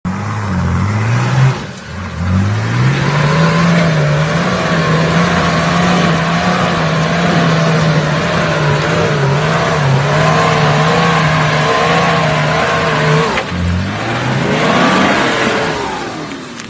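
A 4WD's engine revved hard and held at high revs while it climbs a rutted dirt track, its pitch wavering as the wheels spin and grip. The revs drop about two seconds in and again about three seconds before the end, rising again each time, and the sound fades near the end.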